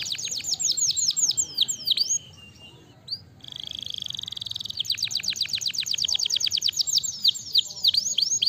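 Domestic canary singing: fast trills of quick down-sweeping whistled notes. After a short pause about two seconds in comes a held rolling trill, and then the rapid sweeping notes start again.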